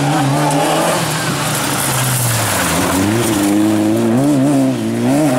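Citroën Saxo rally car's engine revving hard through a hairpin, its pitch dipping and climbing as the driver lifts off and accelerates out, over a hiss of tyres on the loose, dusty surface.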